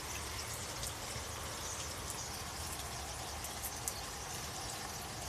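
A large flock of small birds chattering all at once, heard as a dense, crackling, rain-like hiss with faint scattered high chirps.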